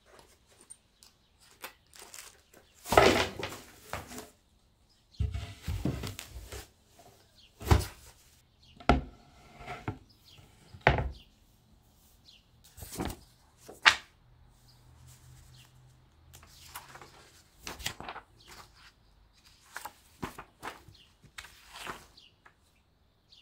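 Handling of flat-pack furniture parts as they are unpacked: irregular knocks, thuds and sharp clicks of wooden and board panels being lifted and set down, with a longer rustling, sliding noise about three seconds in.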